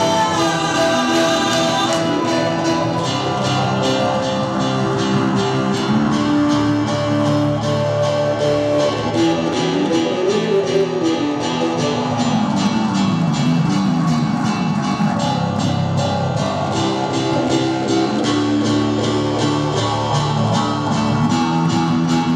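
Live band playing an instrumental passage with no singing: electric bass and keyboard over a steady drum beat.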